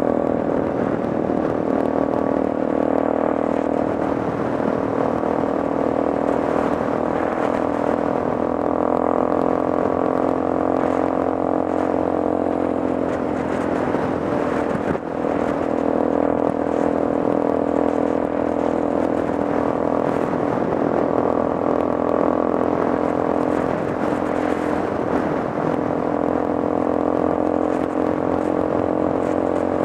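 Engine of a handlebar-steered off-road machine running at a steady cruising speed on the highway, with wind and road noise over it. The engine note holds even, with a momentary dip about halfway through.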